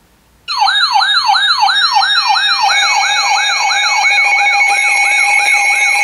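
Several NOAA weather radios sounding their alert alarms at once, starting about half a second in. One gives a fast repeating falling whoop, about three a second, and steady tones from other radios join about two seconds later, layering into a loud combined alarm.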